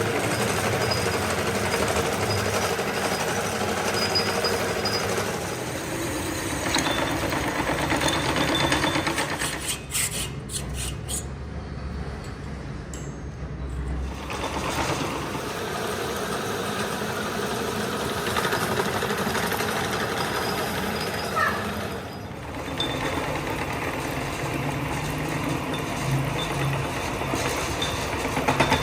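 Machine-shop noise from machine tools running while working metal, changing abruptly several times. There is a quick run of sharp metallic clicks about ten seconds in.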